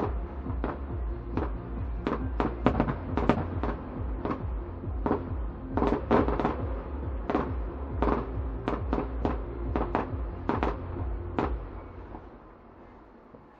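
Fireworks display: aerial shells bursting in rapid, irregular succession, sharp bangs at about two a second over a low rumble. The bangs stop near the end and the sound dies away.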